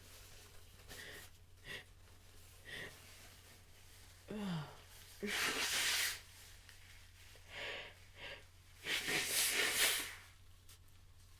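A person's sneezing fit: a few short, hitching breaths, then a falling, voiced 'ah' buildup about four seconds in. Two forceful, messy sneezes follow, at about five and nine seconds, the second the louder.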